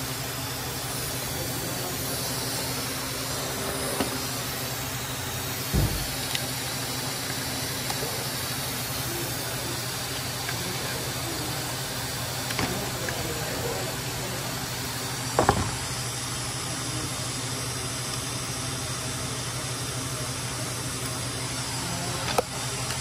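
A few sharp metal clicks and knocks from hand tools working the battery hardware in a car's engine bay, over a steady background hum and hiss. The two loudest knocks come about six seconds in and about halfway through.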